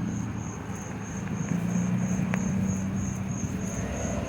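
A low, steady engine drone with a single sharp click about two seconds in, over a steady high-pitched pulsing chirp.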